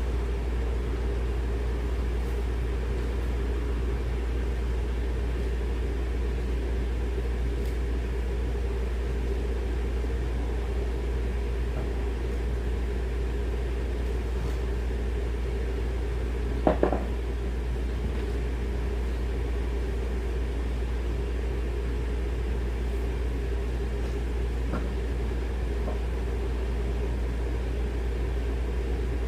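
Steady low mechanical hum, with one brief knock about seventeen seconds in.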